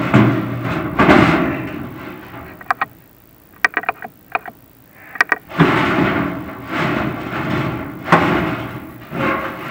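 Chimney inspection camera being lowered down a prefab fireplace's metal flue, its head and push rod scraping and knocking against the metal pipe in rough sliding bursts. A quieter spell in the middle holds a few sharp clicks.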